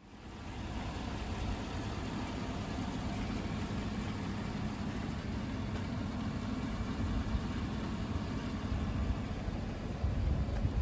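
Chevrolet Silverado 1500 pickup's engine idling, a steady low rumble.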